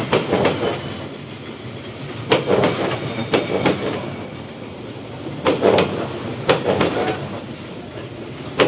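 Train rolling slowly past at close range, its wheels clattering over the rail joints in repeated clusters of sharp knocks over a running rumble.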